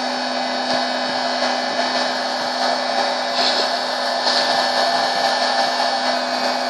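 Popcorn machine running: a steady blowing whir with a constant low hum.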